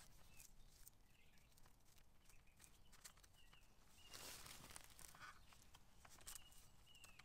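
Near silence, with faint rustling and clicking of a hazel withy being wrapped around poles as a lashing, a little louder about four seconds in.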